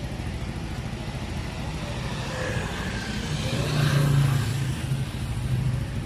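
A motor vehicle passes over a steady traffic rumble, its engine hum loudest about four seconds in.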